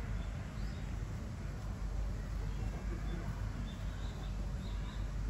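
Outdoor background noise: a steady low rumble, with faint short high chirps from birds now and then.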